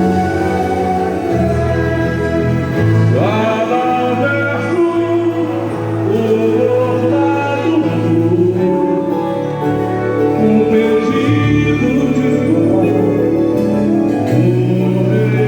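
Live boi-bumbá toada: singers over a band with held bass notes, amplified and loud.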